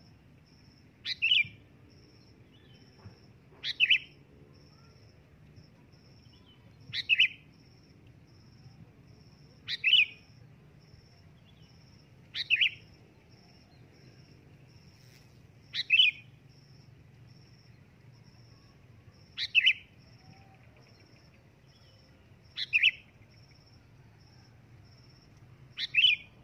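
Sooty-headed bulbul (kutilang) giving a loud, short call, repeated nine times at about three-second intervals, as a lure call to draw in other bulbuls.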